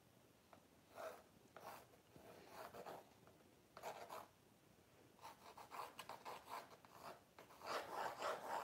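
A pencil sketching on a primed canvas, heard as faint scratchy strokes. A few separate strokes come in the first seconds, then quicker runs of short strokes from about halfway, loudest near the end.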